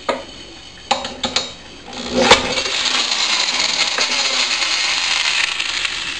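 A few knocks and clatters of handling, then a sharp knock about two seconds in as an electric drill starts spinning a small lawnmower engine over. The drill and engine keep up a loud, steady whirring rattle that is still going at the end.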